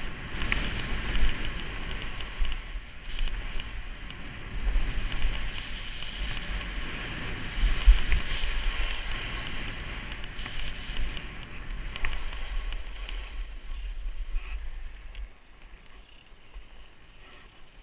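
Skis sliding over snow, heard from the skier's own helmet camera: a steady scraping hiss with many small crackling clicks over low wind rumble on the microphone. About fifteen seconds in it drops to a much quieter hiss as the skier slows down.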